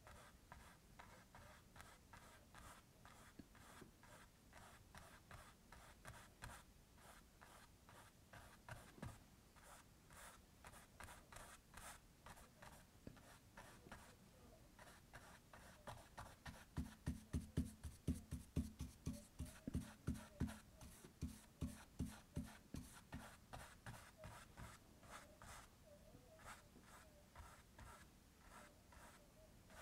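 Faint, repeated short strokes of a paintbrush working oil paint on a canvas, about two or three a second, heavier for several seconds in the middle.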